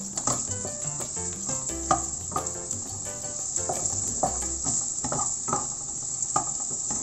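Chopped onion frying in hot oil in a pan: a steady high sizzle, with a wooden spatula scraping and tapping the pan every half second or so as it is stirred.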